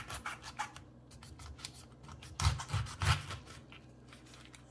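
Kitchen knife cutting through a whole pineapple's tough rind and flesh on a wooden cutting board: a run of short, crisp crunching cuts, with a few heavier knocks about halfway through.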